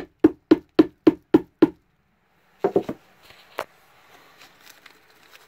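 A quick, even run of knocks on a wooden bee hive box, about four a second, stopping a little under 2 s in. A few more knocks and a single sharp tap follow near the middle. The box is being knocked over to bring it square.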